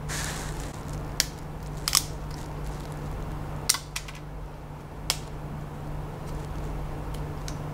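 Flush cutters snipping support struts off a cured resin 3D print: about five sharp, separate snips a second or so apart. A steady low hum runs underneath.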